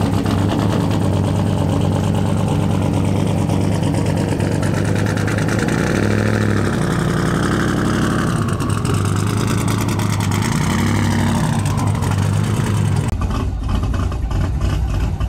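Twin-turbo 427 LS V8 of a Buick Skylark idling steadily, with two short throttle rises, as the car is driven onto a trailer. The sound changes near the end.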